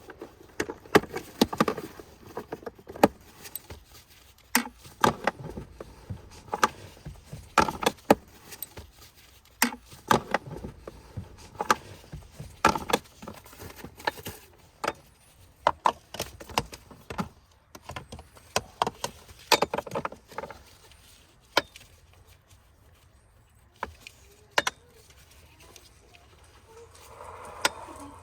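Irregular clicks, clinks and knocks of a car seat's buckles, latches and strap fittings being handled, thinning out to a few single clicks over the last several seconds.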